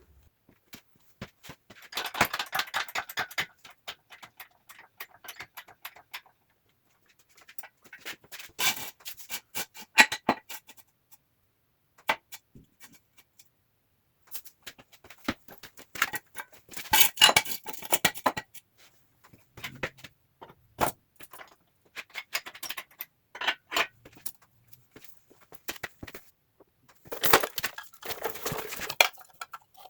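Intermittent metal clinking and rattling in four short spells, with scattered single clicks between, from hand work with tools and steel parts on a truck frame.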